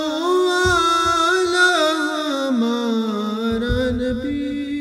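Young male voices singing a naat, one long drawn-out sung line that dips in pitch about halfway through and rises again, with a couple of soft low thuds.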